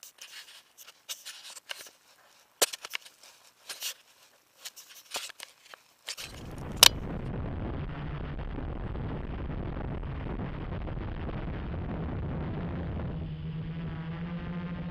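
Scattered clicks and knocks of a small camera being handled for about six seconds, then a steady rushing noise. Near the end a steady electric hum joins it as the Gaui 330X quadcopter's motors run up for flight.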